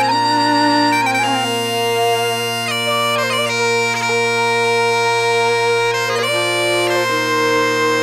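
Scottish Highland bagpipes playing a tune, the chanter's melody moving from note to note over steady, unbroken drones.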